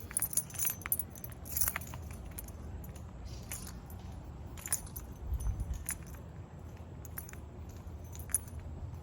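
Keys jangling in irregular light jingles while someone walks, over a low rumble of wind or handling noise on the microphone.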